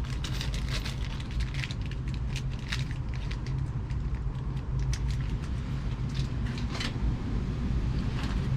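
Small scattered clicks and rustles of bolts and washers being handled while fitting deck framing, over a steady low hum.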